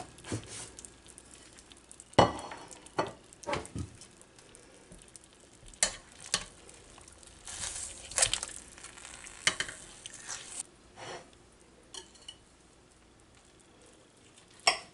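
Kitchen utensil clatter: tongs knocking against a crock pot and a knife and fork clinking and scraping on a ceramic plate as cooked chicken is lifted out and cut, a scatter of separate clicks and clinks one to two seconds apart.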